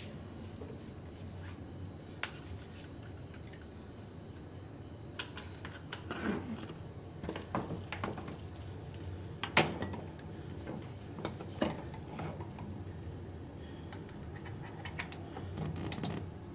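A screen door being worked on its pneumatic closer, newly fitted to a replacement frame bracket: scattered metallic clicks and rattles of the door, closer and latch, with a single sharp latch-like click a little past halfway and another a couple of seconds later. The door is closing normally under the closer, showing the repair works.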